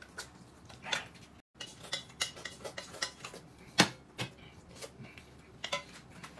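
Tableware clinking during a meal: a dozen or so light, sharp knocks and taps of utensils against dishes at irregular intervals, the loudest a little before four seconds in.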